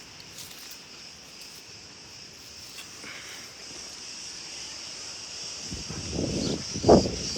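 Steady high chirring of crickets. Louder animal calls come in near the end, the sharpest just before it ends.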